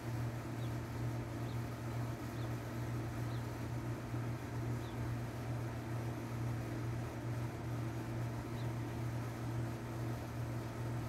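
Steady low machine hum, unchanging throughout, with a few faint, short, high chirps at uneven intervals.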